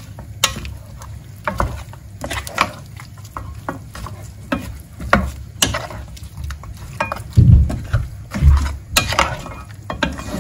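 Wooden spatula stirring chunks of mutton with onion and leek in a white-coated frying pan: irregular scrapes and knocks of wood against the pan over the meat frying. Two dull thumps come about three quarters of the way through.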